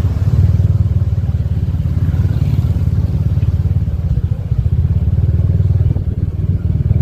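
Motorbike running at a steady pace while being ridden, heard as a loud, steady low rumble.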